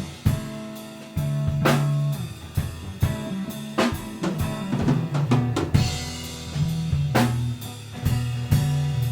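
Live drum kit and bass playing a groove together, with sharp snare and kick hits and held low bass notes moving between pitches.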